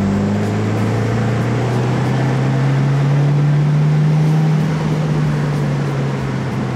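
Subaru WRX's turbocharged flat-four through an Invidia R400 cat-back exhaust, heard from inside the cabin with the windows down. The exhaust note drops at the start, climbs steadily under acceleration for about four seconds, then eases off and falls, over road and wind noise.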